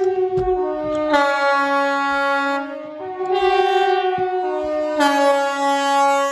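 KTG-10 compressed-air siren sounding the Swiss general alarm: a loud chord of several tones that steps up and down in pitch every second or two.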